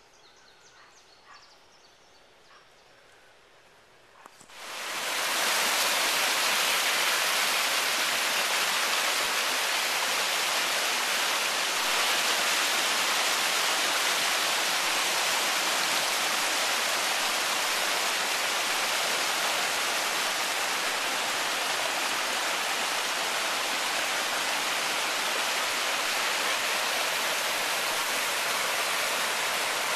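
Rushing creek water tumbling over rocks in a small cascade: a loud, steady rush that comes in suddenly about four seconds in, after a few seconds of faint quiet.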